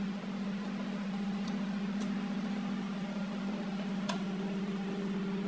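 Steady low motor hum, with a few faint metallic clicks as a connecting-rod cap is worked onto the crankshaft of a diesel engine block.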